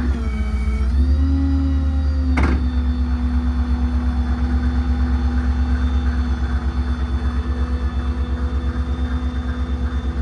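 Ford F-600's 7.3 V8 gas engine running with the PTO engaged to power the service-body crane's hydraulics: a steady, pulsing low rumble with a hum. The pitch dips and recovers in the first second, and there is one sharp click about two and a half seconds in.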